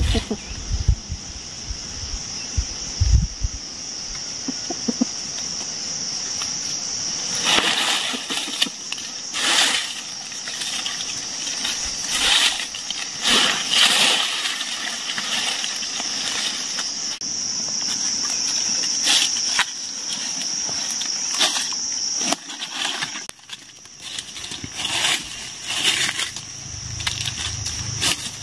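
Dry leaves rustling and crackling in short handfuls, from several seconds in, as they are spread over a net trap on the ground, over a steady high-pitched insect drone.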